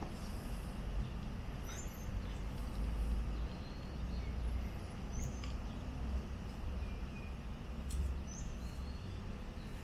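Steady low rumble of outdoor background noise, with a few faint, short high chirps scattered through it.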